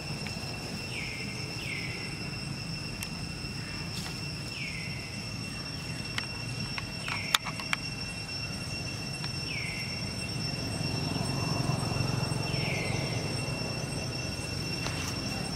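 Steady high-pitched insect drone with about seven short, falling chirps scattered through it, over a low rumbling background. A few sharp clicks come about halfway through.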